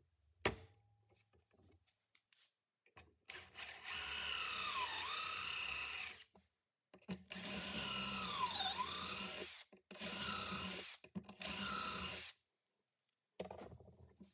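Cordless drill boring pocket holes through a Kreg R3 pocket hole jig into a 3/4-inch board with the stepped pocket-hole bit. There are two long runs in which the motor's whine dips in pitch as the bit bites into the wood and then rises again, followed by two shorter bursts. A single sharp click comes about half a second in.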